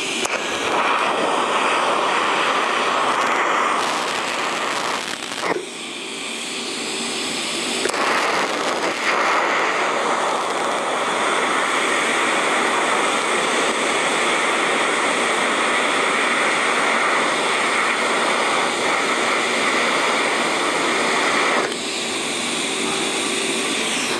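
Electric welding arc running steadily while tack welds are laid on the lamp's metal base. It drops off briefly about five seconds in, starts again, and cuts off suddenly a couple of seconds before the end.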